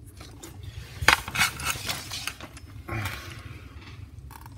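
Handling noise as the RC truck and a hand-held camera are moved about: several clicks and light knocks between about one and two and a half seconds in, then a short scraping rustle around three seconds, over a steady low hum.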